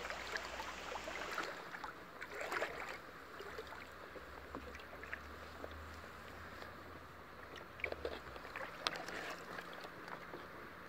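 Faint outdoor background: a low rumble with a few soft clicks and knocks, most of them about eight to nine seconds in.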